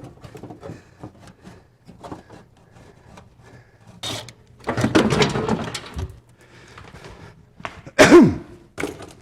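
Scattered clicks and clunks of metal parts and tools being worked by hand. About five seconds in comes a louder, longer stretch of rattling and scraping, and just after eight seconds a sharp knock with a short falling squeak.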